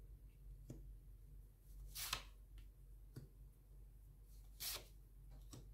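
Tarot cards being handled and laid out: a few soft, brief swishes and taps, the loudest about two seconds in, over a faint low hum.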